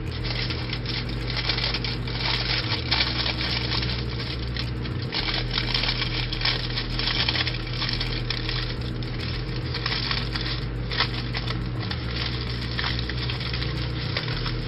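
Aluminium hair foil crinkling and crackling as it is folded and pressed around a strand of hair, with many small clicks, over a steady low hum.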